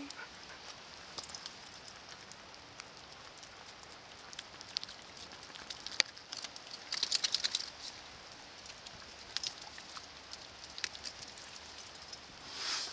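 Steady rain with scattered close raindrop ticks, and a quick run of patters about seven seconds in. A short rushing noise comes near the end.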